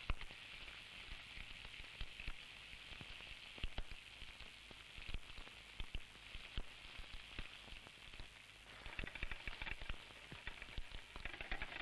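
Sliced bananas frying in foaming butter in a frying pan: a steady sizzle full of small crackles that grows busier and louder about nine seconds in.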